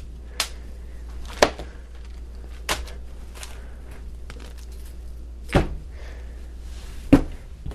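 Plastic safety glasses and other small gear set down one by one on a rubber workbench mat: about five short clacks and knocks spread out over several seconds, over a steady low hum.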